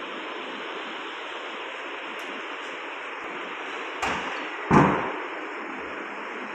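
Steady hiss throughout, with two thumps about four seconds in, the second louder and dying away quickly.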